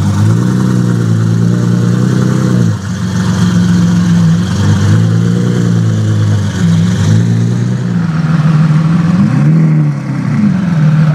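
Mansory Carbonado Apertos's twin-turbo V12 idling, with several short throttle blips, each a quick rise and fall in pitch.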